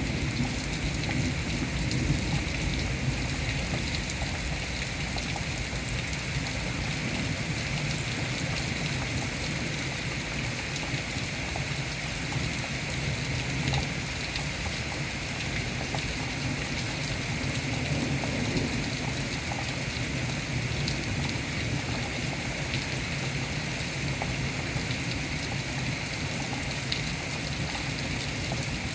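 Steady rain falling during a thunderstorm, an even hiss of rain with a low rumble underneath that does not let up.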